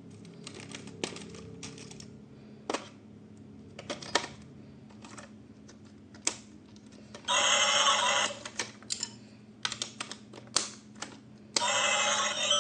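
Irregular sharp clicks and taps of plastic toy parts and packaging being handled. A louder burst with several steady tones sounds about seven seconds in, and again near the end.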